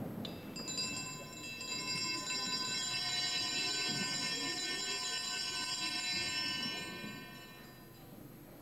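Altar bells rung at the elevation of the host during the consecration of the Mass. A cluster of small bells strikes about half a second in, rings on with many high overlapping tones, and fades away near the end.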